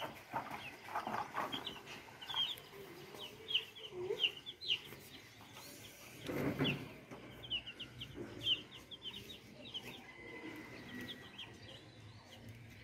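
Young chicks peeping: many short, high peeps with a sliding pitch, coming in quick clusters. A brief scuffing noise about six and a half seconds in.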